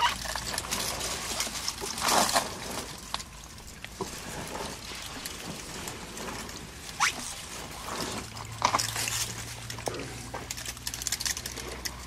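African elephant feeding in the rain: leaves and branches rustling and snapping irregularly, with a loud burst of breaking foliage about two seconds in and sharp cracks later, over a steady patter of rain.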